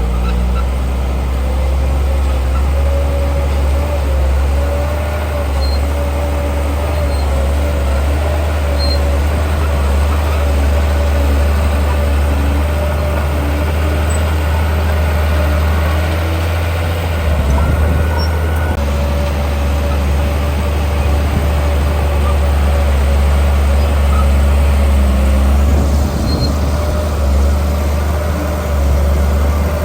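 Heavy diesel construction machinery running with a steady low engine drone and a steady whine above it, with brief rough surges a little past halfway and again later.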